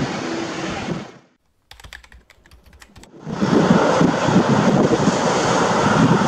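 Boeing 787-8's GEnx turbofan engines running, fading out about a second in to a near-silent gap with a few faint clicks. The engine noise comes back louder just past three seconds in as the airliner begins its takeoff run.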